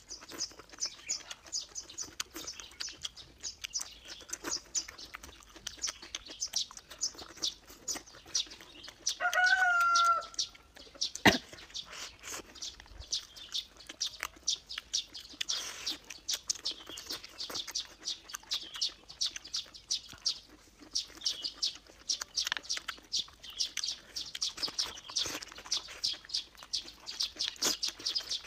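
Close-up chewing of crunchy pumpkin-leaf stems and bamboo shoots, with a rapid stream of wet mouth clicks and crunches throughout. A chicken calls once, briefly, about ten seconds in, and a single sharp click follows just after.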